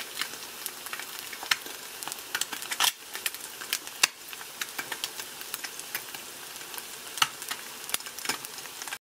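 An egg frying sunny-side up in oil in a frying pan: steady sizzling with frequent irregular spits and pops.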